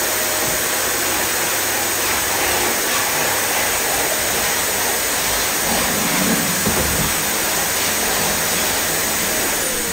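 Vacuum cleaner running steadily as its floor head is pushed over a laminate floor.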